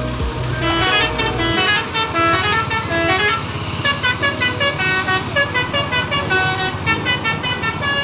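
Bus basuri telolet horn playing a quick melody of short held notes stepping up and down, several a second. A low engine rumble runs underneath and stops about a second and a half in.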